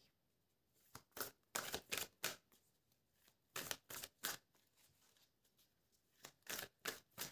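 Tarot cards, two decks mixed together, being shuffled by hand: short papery flicks in about four quick runs, with pauses between them.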